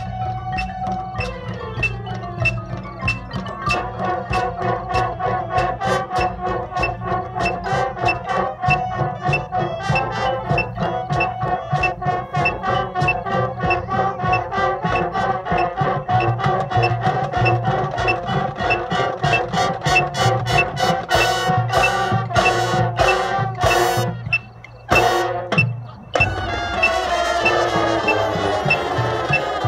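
Marching band playing live: brass with marimba and percussion over a steady, fast rhythmic pulse. Near the end the music drops out briefly, then returns as a sustained chord with falling lines.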